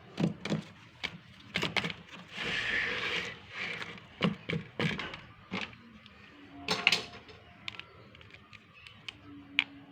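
Handling noises from unboxing a pouch: a scattering of sharp clicks and taps, with a brief rustle about two and a half seconds in.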